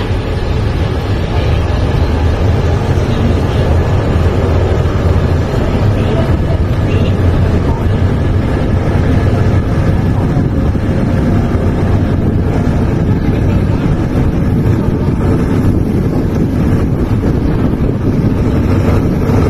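Passenger train under way, heard from an open carriage door: a steady deep rumble of the carriage running on the track, with wind buffeting the microphone.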